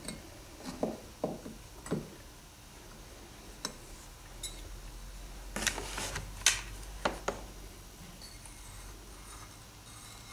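Plaster rock castings being handled and set against a model wall: a series of light knocks and clicks, with a cluster of louder scrapes and clicks about halfway through.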